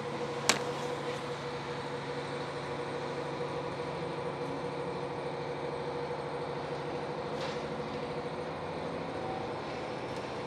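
Diesel railcar train running with a steady engine hum, heard from inside the carriage. A single sharp click sounds about half a second in.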